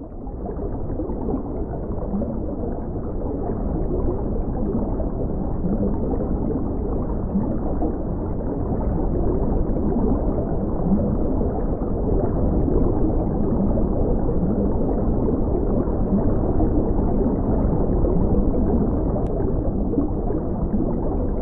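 Steady muffled underwater rumble with faint gurgling and wavering low tones, fading in over the first second.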